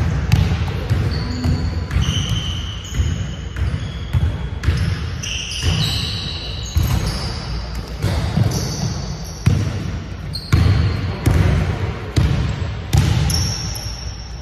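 Basketballs bouncing on a hardwood gym floor, a steady run of thuds about one to two a second, with short high sneaker squeaks between them.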